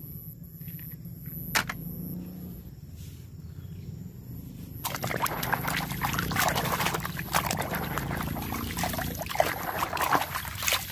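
Muddy water in a plastic basin being sloshed and splashed by hand while a toy car is washed. After a quieter start with a single click, the splashing begins about five seconds in and keeps going, busy and uneven, for about six seconds.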